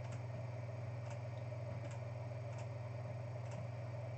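Faint computer mouse clicks, about one a second, over a steady low electrical hum.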